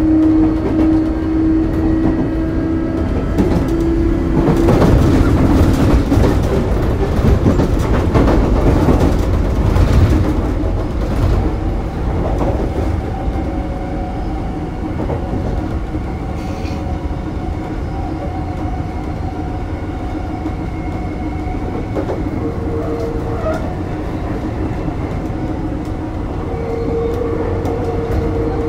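Sotetsu New 7000 series electric train running, with a steady whine from its early Hitachi GTO-VVVF traction equipment and wheels clattering over the rail joints. The rail noise grows louder from about four to twelve seconds in.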